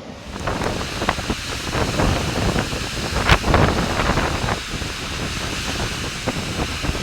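Ocean surf from a typhoon swell, mixed with strong wind buffeting the microphone, which gives a heavy low rumble and irregular crackling gusts.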